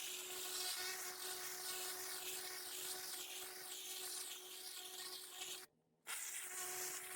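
Pressure washer blasting dirty paving: the steady hiss of the water jet over the machine's steady hum, swelling and fading about twice a second as the jet sweeps back and forth. The sound cuts out completely for a moment near the end.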